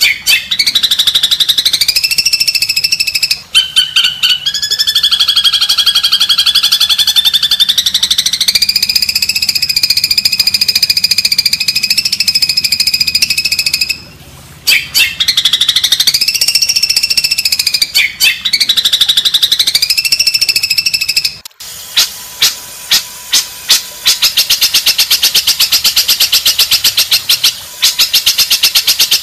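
Songbird song from a cendet (long-tailed shrike) masteran track: long, fast, buzzy rattling trills whose pitch rises and falls, broken by short pauses. About two-thirds of the way in come a few separate chirps, then another steady fast rattle.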